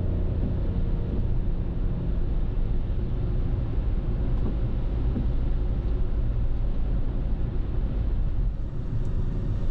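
Car driving along a road: steady low road and engine noise with no music.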